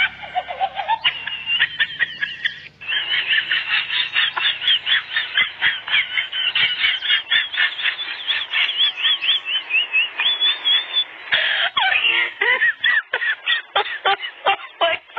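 Puppies squealing and yipping while they play-fight: a fast run of short high-pitched cries, several a second, that breaks up into scattered sharper yips near the end.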